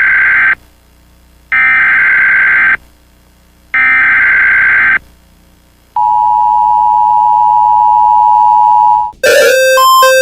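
Emergency Alert System broadcast: three harsh, buzzing bursts of the digital header code, each about a second long with a second's pause between, then the steady two-tone attention signal for about three seconds. Near the end it cuts abruptly to a different fast, repeating beeping alert tone.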